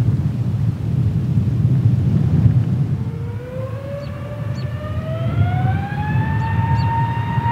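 Airbus A320neo's CFM LEAP-1A turbofan engines spooling up for takeoff over a steady low rumble. A whine rises in pitch from about three seconds in and levels off near the end.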